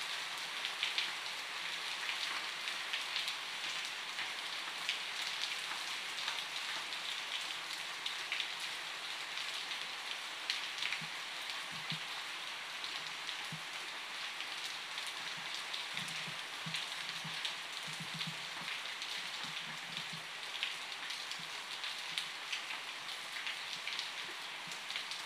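Steady rain falling, with many individual drops ticking close by over an even hiss. A few soft, short low thuds come midway.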